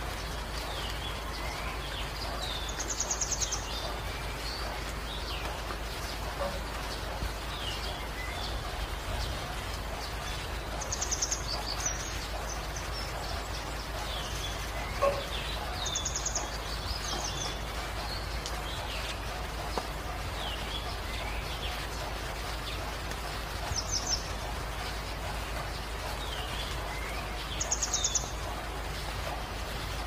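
Steady rain falling while birds call over it: a short, rapid high trill comes five times, spaced a few seconds apart, amid scattered chirps and slurred whistles. A single sharp knock sounds about halfway through.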